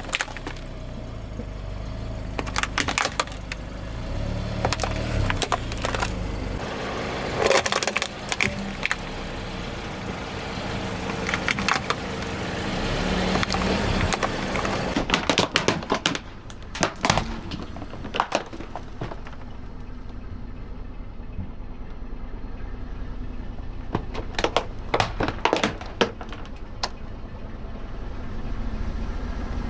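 A car rolling slowly over objects, its tyres crushing them with clusters of sharp cracks and snaps every few seconds over a low engine and tyre rumble.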